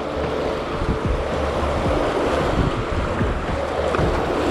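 River rapids rushing and splashing around the bow of a canoe as it runs through white water, with wind and spray buffeting the microphone.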